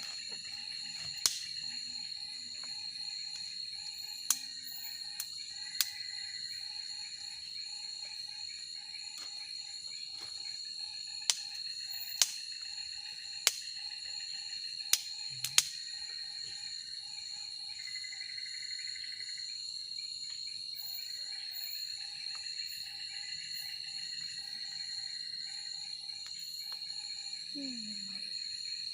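Night-time forest insect chorus: a steady high-pitched drone with a slower pulsing call beneath it and occasional brief buzzing calls. About eight sharp clicks or snaps stand out over it, most of them in the first half.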